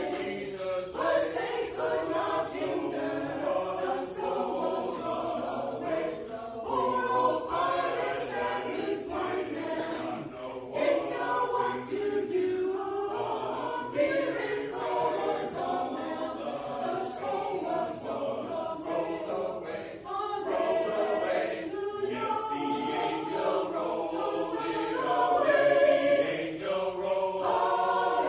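A choir of many voices singing together, men and women, with continuously moving sustained notes.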